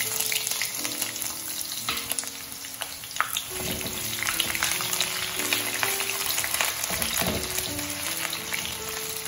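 Chopped onion sizzling and crackling as it fries in hot mustard oil in a kadhai, with a spatula stirring it through, and many small spatter pops.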